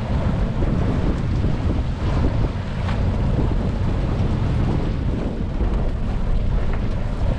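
Wind buffeting the microphone over a small open boat under way: a steady low rumble from the outboard motor and water rushing along the hull.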